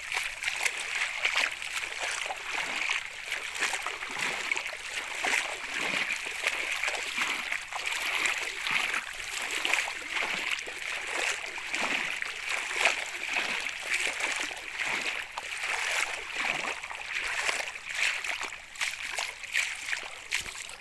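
Feet wading through shallow floodwater, splashing and sloshing continuously with each irregular step.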